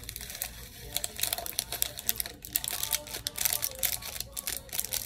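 Dry Orbeez water beads poured from a plastic bag into a bottle of water: a rapid, dense patter of tiny clicks and plinks as the beads spill in, thickening about a second in and stopping just as the pour ends.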